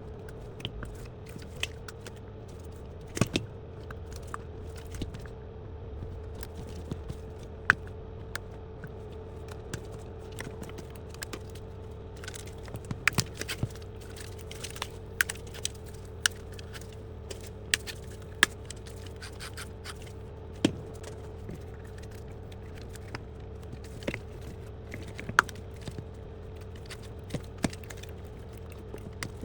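Scattered clicks and short scrapes of hands working a rubber tire off and onto a Roomba 960 drive wheel, over a steady hum.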